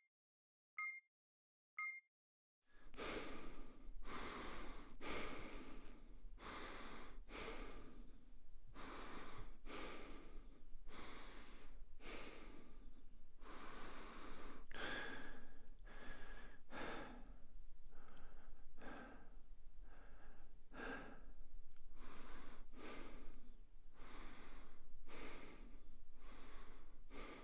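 Three short beeps, then a person breathing through the nose: repeated noisy in- and out-breaths at about one a second.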